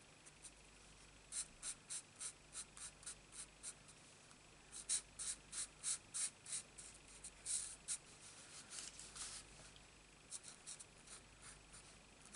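Stampin' Blends alcohol marker nib scratching on cardstock as it colours in, in quick short back-and-forth strokes of about four a second, coming in runs with brief pauses.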